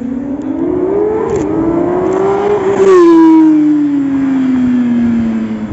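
Supercar engine accelerating hard toward and past the listener, its pitch rising with a brief dip at an upshift about a second and a half in. It is loudest about three seconds in as the car goes by, then the pitch falls steadily as it drives away.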